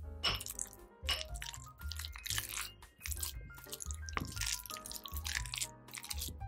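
Wooden spatula mashing and stirring shredded cooked pork for rillettes in a glass bowl, a short noisy stroke about twice a second, over background music.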